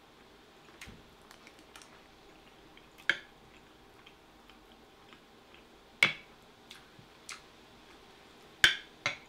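A spoon scooping food from a glass dish, clicking and tapping sharply against the glass a few times, the loudest about six and eight and a half seconds in, with faint small ticks of chewing between.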